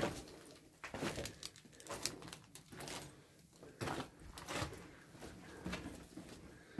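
Footsteps on a debris-strewn floor: irregular scuffs and crunches, about one or two a second.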